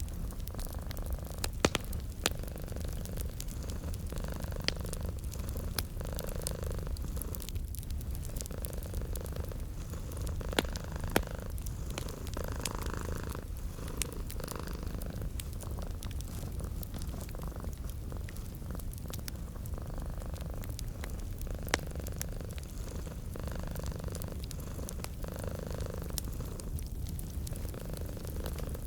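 Domestic cat purring steadily, with a wood fire crackling and popping over it; a handful of sharper pops stand out, two of them close together about eleven seconds in.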